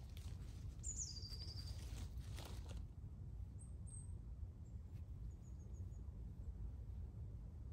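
Woodland ambience: a steady low rumble with a small bird's high chirps, one falling call about a second in and a short run of faint high notes later. A brief rustle in the dry leaf litter comes about two and a half seconds in.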